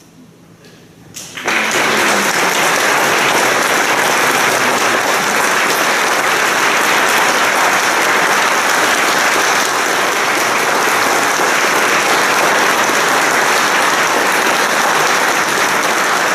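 Audience applause. It breaks out after a brief quiet, with a few single claps about a second in, then becomes steady, full applause.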